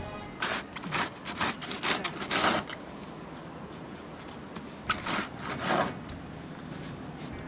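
Snow crunching in short, noisy bursts: a quick run of about half a dozen crunches, a pause, then two or three more about five seconds in.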